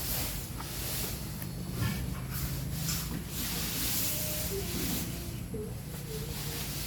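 Steady hissing noise that swells and fades every second or so, over a low steady hum.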